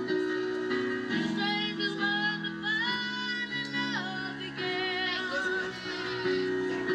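Amplified street performance: a boy's voice singing a melody with vibrato into a microphone over held electric keyboard chords, played through small portable speakers.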